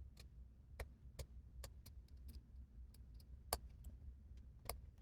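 Faint, irregular small clicks and ticks of a precision screwdriver working the tiny Phillips screws and metal parts inside a first-generation iPod Nano. The sharpest clicks come about three and a half seconds in and near the end.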